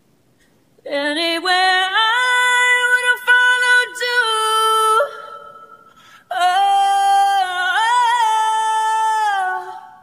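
A woman's solo singing voice, separated out of a duet recording by AI stem separation, with no piano or other voice under it. It sings two long, held phrases: the first begins about a second in, and the second follows a short pause in the middle.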